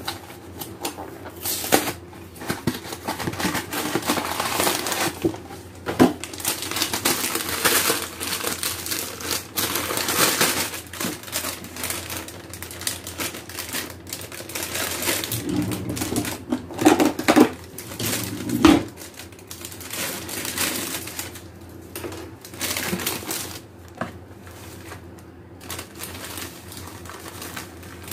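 The plastic inner bag of a boxed cake mix and its cardboard box being handled and pulled open: continuous crinkling and rustling of plastic with scattered sharp clicks and taps.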